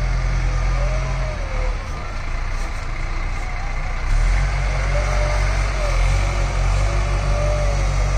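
Bull Challenger CH 76 backhoe loader's diesel engine running under work. It eases off after about a second and picks up again, louder, about four seconds in, with a faint wavering whine over it.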